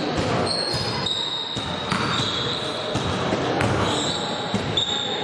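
Basketball play on an indoor court: sneakers repeatedly squeaking on the floor in short high squeals, with the thuds of the ball bouncing.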